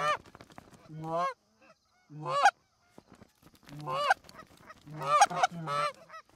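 Canada geese honking: about seven loud honks, each breaking from a low note up to a higher one, the last three in quick succession.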